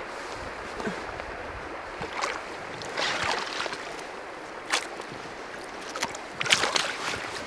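Stream water running, with about four splashes and sloshes as hands work in the water letting a trout go; the loudest splash comes near the end.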